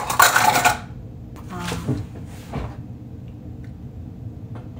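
Kitchen utensils clattering as they are handled for about the first second, then a few quieter knocks and rustles of a kitchen cupboard being searched.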